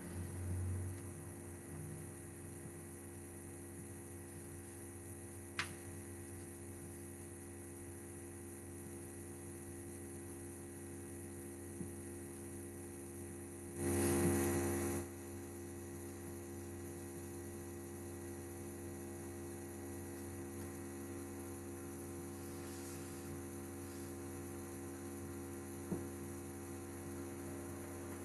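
Steady electrical mains hum, with a few single faint clicks and one louder burst of noise about a second long near the middle.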